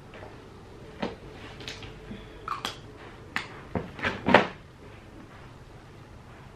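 Makeup bottles and containers being picked up and set down: a run of about eight light clicks and knocks, the loudest about four seconds in.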